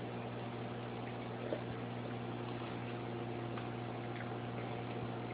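Steady electrical hum with a few faint small clicks, one slightly louder about a second and a half in.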